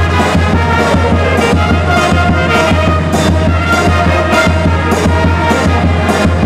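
Brass band playing: trumpets carry the melody over a steady beat from bass drum and crash cymbals, with the cymbal strokes coming about twice a second.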